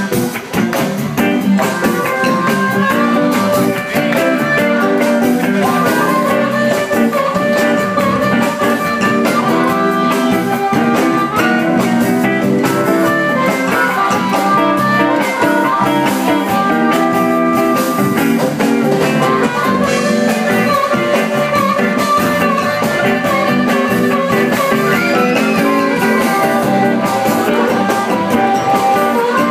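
Live blues band playing: a harmonica cupped against a vocal microphone plays long held notes over electric-style guitar and a drum kit.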